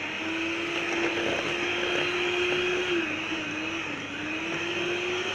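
Electric hand mixer running steadily, its beaters creaming butter and icing sugar in a bowl. The motor's pitch dips about three seconds in and then climbs back.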